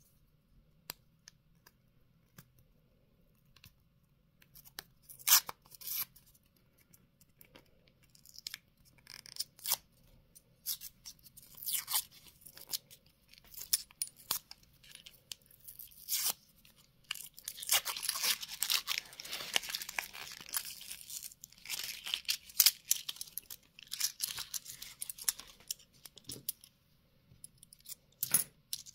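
Paper wrapper of a euro coin roll being torn open by hand: scattered short rips and crinkles starting about five seconds in, then a longer stretch of continuous tearing and rustling. Near the end, metal coins click together as they come free of the paper.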